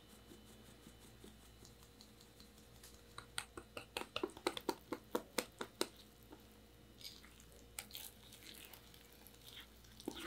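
A wire whisk clicks sharply and rapidly against a glass mixing bowl as sifted cake flour is beaten into an egg-yolk, milk and oil mixture. Near the end it turns to softer wet stirring through the thickening batter. Faint light tapping of a fine mesh sieve comes first.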